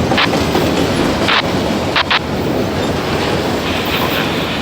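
Freight train cars rolling past with a steady rumble of steel wheels on rail, broken by a few sharp clicks, two of them close together about two seconds in.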